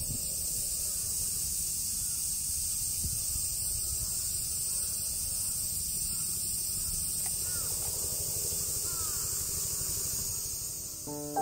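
Outdoor summer ambience: a steady high drone of insects over a low rumble, with a few short bird calls about two-thirds of the way through. Piano music comes in right at the end.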